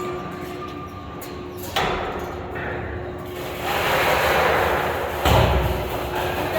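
A heavy steel load being set down by overhead cranes: a sharp clank about two seconds in, a rushing scrape, then a deep thud about five seconds in, over a steady hum.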